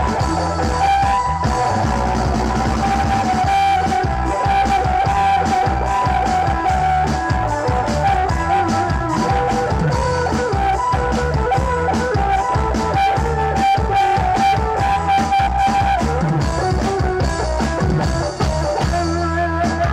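Kecimol band music from the Sasak tradition of Lombok: marching snare drums and a large bass drum beat a steady dance rhythm under an amplified melody played through a loudspeaker stack.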